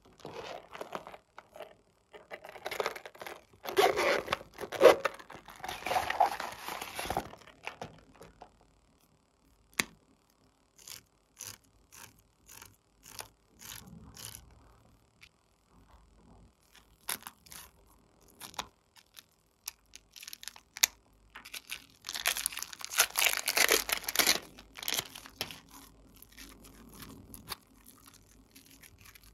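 Hands working glossy slime and plastic piping bags: two longer spells of crinkling and crackling, one a few seconds in and one near the end, with scattered clicks and small pops between.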